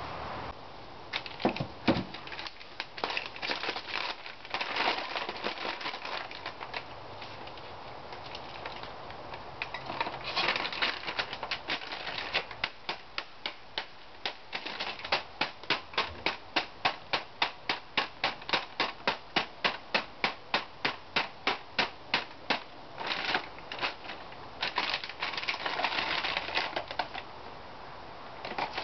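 Plastic toner cartridge being worked by hand: irregular plastic clicks and rattles as the fill cap is pried off and the cartridge is handled over a plastic bag. From about the middle, a long run of steady sharp clicks, about three a second, as the cartridge is shaken or tapped to empty the old toner, then more irregular clicking and rustling.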